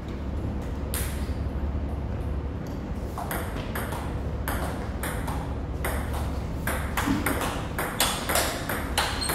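Table tennis rally: the celluloid ball clicking off the paddles and bouncing on the table, the hits sparse at first and coming close together in the second half. A steady low hum sits underneath.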